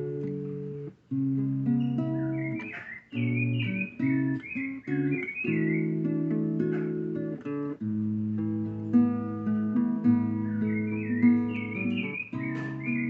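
Acoustic guitar strumming held chords, with breaks between strums. Over it, birdsong warbles in two stretches, in the first half and again near the end.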